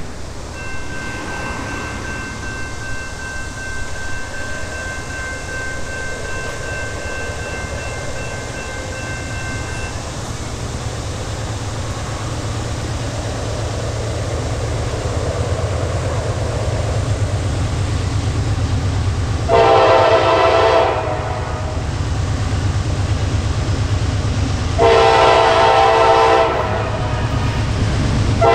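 Approaching Norfolk Southern GE Dash 9-40CW diesel locomotive hauling an intermodal train, its low rumble slowly building. It sounds its horn in two long blasts about 19 and 25 seconds in, and a third blast begins near the end.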